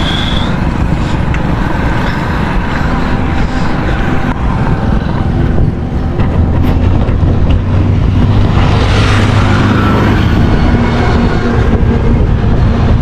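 Wind rushing over the microphone of a camera mounted on a moving bicycle, over the noise of passing road traffic. A motor vehicle's low engine hum comes in about six seconds in, and a vehicle sweeps past around nine seconds.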